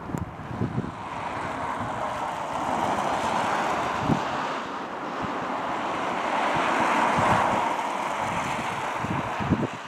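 Cars passing on a snowy road: tyre noise swells and fades twice, loudest about seven seconds in. Gusts of wind buffet the microphone at the start and near the end.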